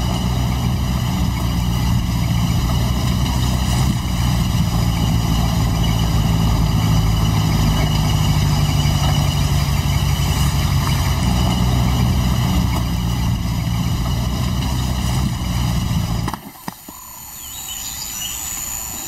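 Engine of an open safari vehicle running steadily as it drives through the bush, a low even drone. It cuts off suddenly near the end.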